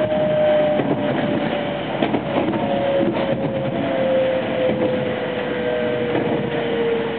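Running noise heard inside a JR West 225 series electric train with a Toshiba inverter drive. The motor whine falls slowly in pitch as the train slows, over a steady rumble of wheels on rail, with some wheel clatter over rail joints two to three seconds in.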